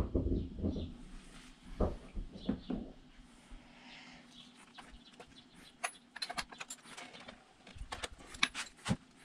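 Metal clicks and clinks of a spark plug socket and T-handle extension being fitted onto a spark plug and turned to unscrew it from an outboard motor's cylinder head.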